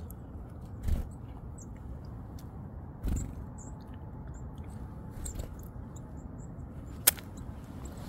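Low rumble of wind on the microphone with two dull handling bumps, faint high-pitched chirps of small birds, and a single sharp click about seven seconds in as sunflower seeds and peanuts are dropped onto a plastic feeding tray.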